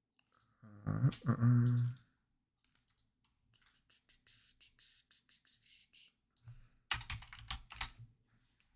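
Typing on a computer keyboard: a run of quick, light keystrokes, about five a second, midway through, then a cluster of louder key or mouse clicks near the end. A brief louder sound comes about a second in.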